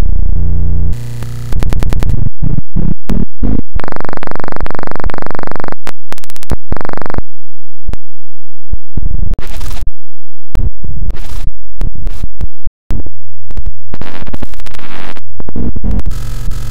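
Loud, heavily distorted electronic music and noise, pushed to full level and chopped into rapid stuttering bursts with scratch-like glitches and brief dropouts.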